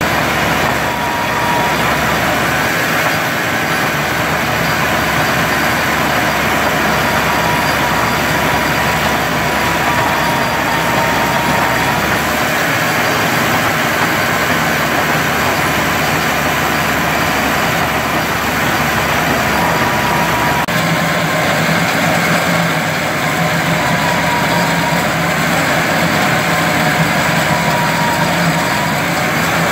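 Caterpillar backhoe loader's diesel engine running hard, driving a RoadHog RH4075D hydraulic cold planer that is milling a utility cut in asphalt: a loud, steady grinding with a high whine that wavers in pitch. The sound shifts in character about two-thirds of the way through.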